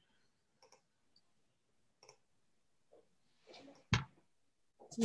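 Computer mouse clicking a few times, spaced a second or so apart, then a short rustle and a single sharp knock about four seconds in, the loudest sound.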